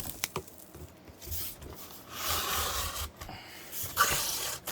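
Cardboard box being opened by hand: a few light clicks, then flaps and packing rubbing and scraping, longest about two seconds in and again briefly near the end.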